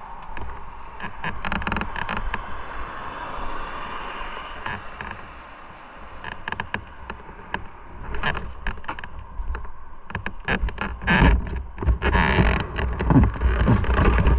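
Wind buffeting the camera microphone, with scattered clicks and knocks from the camera being handled. The wind rumble grows stronger and gustier in the second half.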